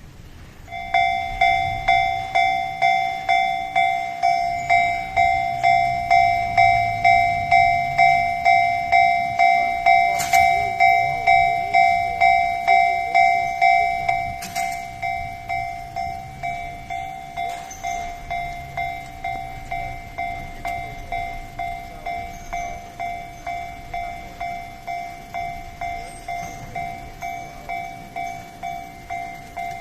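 Japanese railway level-crossing alarm starting up about a second in: an electronic two-pitch ding repeating about twice a second, dropping in volume about halfway through.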